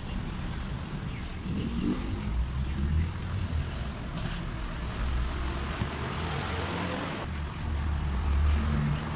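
Low steady rumble of a motor vehicle engine running, its pitch rising briefly in the middle.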